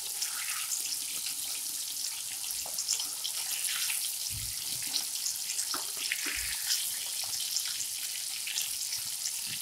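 Surmai (kingfish) steaks shallow-frying in hot mustard oil: a steady hiss with fine crackling. Two soft low thuds, about four and six seconds in, come as a metal spatula turns the pieces in the pan.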